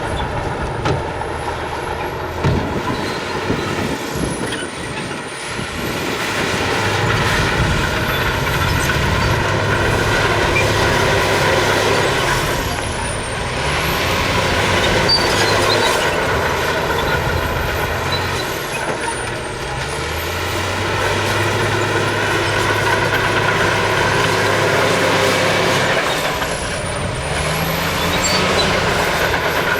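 Heavy diesel earthmoving machinery working: bulldozer and dump truck engines running under load, the engine sound swelling and easing off in long surges every several seconds.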